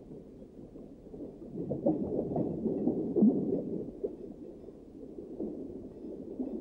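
Muffled low underwater rumbling, swelling louder for a couple of seconds in the middle.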